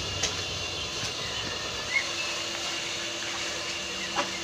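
Steady hiss of a pot of pork broth boiling over a wood fire, with a few sharp small clicks.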